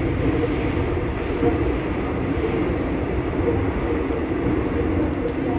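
Steady wheel-on-rail running noise heard inside a Seoul Subway Line 9 passenger car, a trailer car rather than a motor car.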